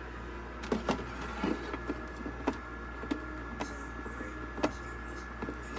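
Small thermoelectric dehumidifier's fan running with a steady hum, with irregular sharp clicks and knocks scattered over it.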